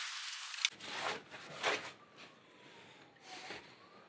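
Razor blade scraping old seal adhesive off the van's sheet-metal window opening: a dry rasping that stops abruptly with a click under a second in. A few scattered faint rubs and knocks follow.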